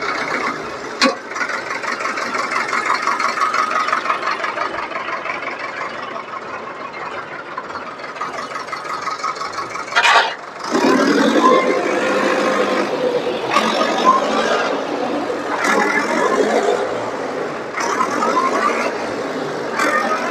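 Tractor diesel engine running hard under heavy load, straining to pull a heavily loaded trolley that is close to getting stuck. A sharp knock comes about a second in, and a loud burst near ten seconds, after which the engine sound grows heavier.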